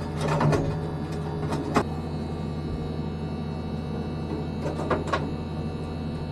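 A steady machinery hum with several sharp knocks and clicks of metal parts and hardware being handled.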